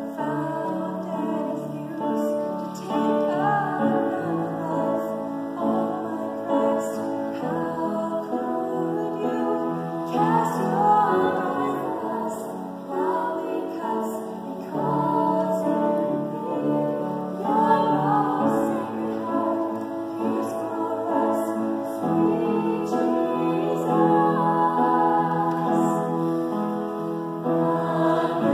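Mixed-voice vocal octet of men and women singing a slow sacred choral piece in close harmony, holding sustained chords that swell and shift.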